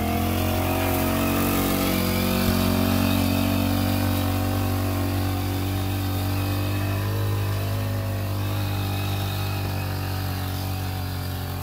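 Small engine of a backpack power sprayer running steadily, driving the pump that forces the spray out through the lance. Its pitch wavers slightly now and then.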